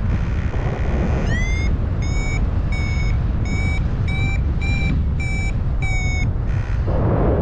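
Paragliding variometer sounding its climb tone: a first beep that glides up in pitch, then a string of short, high, even beeps about one and a half a second, the sign that the glider is climbing in rising air. Steady wind rumble on the microphone runs underneath.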